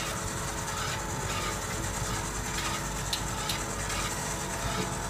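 Popcorn vending machine's internal mechanism running: a steady motor hum with a repeating mechanical rattle, and two sharp clicks about three seconds in.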